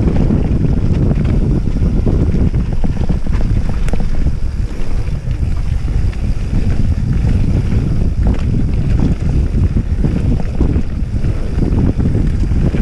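Wind buffeting the microphone of a handlebar-mounted camera on a mountain bike riding fast downhill, a loud steady rumble, with frequent knocks and rattles from the bike jolting over the rough dirt trail.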